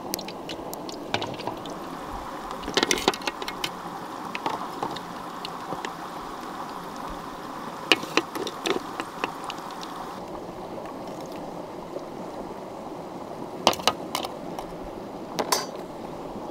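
Steady rush of a flowing stream, with short clusters of sharp clicks and knocks a few times.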